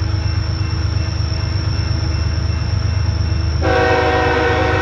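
Diesel freight locomotive approaching under load on an upgrade, a steady low engine rumble. About three and a half seconds in, its air horn sounds a chord of several notes and holds it.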